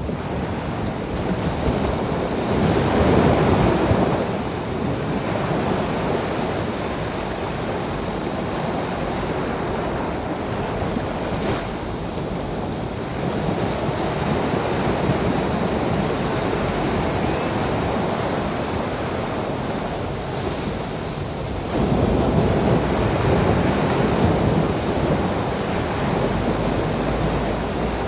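Ocean waves washing onto a shore in a continuous surf, swelling louder about three seconds in and again about three-quarters of the way through.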